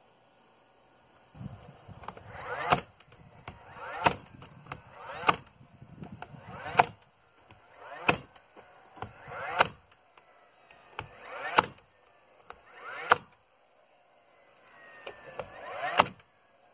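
Hammer driving nails home in 2x4 framing lumber: about nine sharp blows, one every second and a half or so, sinking nails that the nail gun left standing proud.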